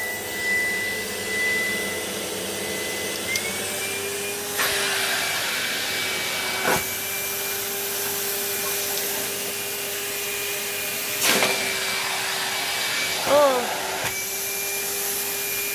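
Numatic Hetty cylinder vacuum cleaner running steadily with a whining motor tone that rises a little in pitch a few seconds in. Sharp clicks and knocks sound three times as it works over a rug, and a short wavering sound comes near the end.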